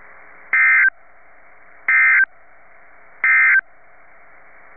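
Emergency Alert System SAME data tones: three short bursts of the digital end-of-message code about 1.3 seconds apart, over a steady hiss. They mark the end of the broadcast tornado warning.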